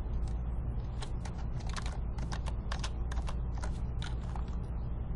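Computer keyboard keystrokes: a dozen or so irregular clicks, over a steady low hum.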